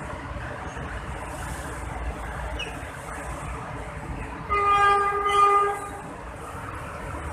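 An approaching PNR train sounds its horn once, a single steady blast of a bit over a second, about four and a half seconds in, over a steady low background rumble.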